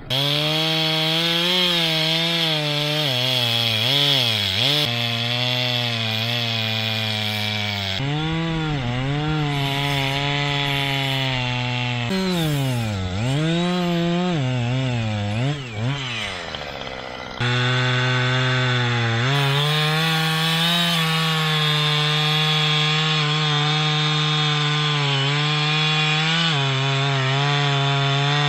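Chainsaw running at high revs while cutting pine, its engine pitch sagging again and again as the chain bites into the wood and climbing back when it frees up. The sound jumps abruptly a few times, about eight, twelve and seventeen seconds in.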